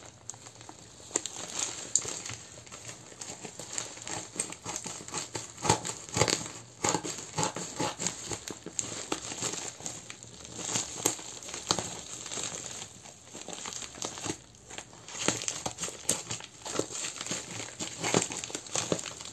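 A shipping parcel and its protective packing being opened and handled by hand: irregular crinkling and rustling with sharp crackles.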